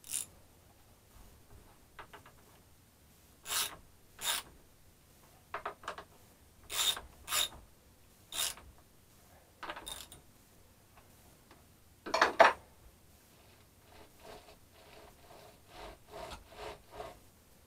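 Husqvarna chainsaw's chain and bar worked by hand while the chain tension is being adjusted. There is a series of short metallic scraping strokes, the loudest about twelve seconds in, then a run of light quick clicks near the end.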